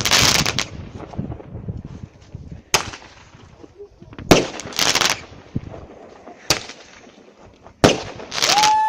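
Fireworks going off: a string of sharp bangs at irregular intervals, some trailing a brief crackle. Near the end a steady high whistle starts up.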